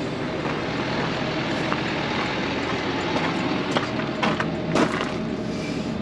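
A John Deere tractor's engine running steadily, with a few sharp metallic clacks in the second half.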